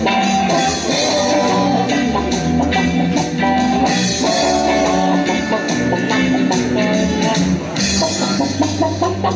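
Recorded rock-style music with electric guitar, drum kit and singing, played over a loudspeaker with a steady beat.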